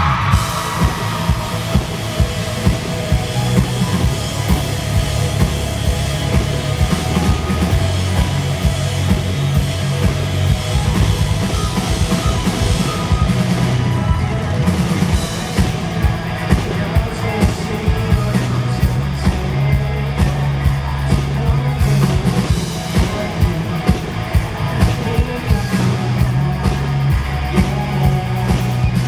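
Live rock band playing a song through a PA system, with a driving drum-kit beat, bass and guitars.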